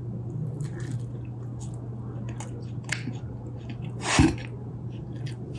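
A person biting into and chewing a big mouthful of croissant-dough bread, with wet mouth sounds and small scattered clicks. A short exclamation and laugh about four seconds in is the loudest moment.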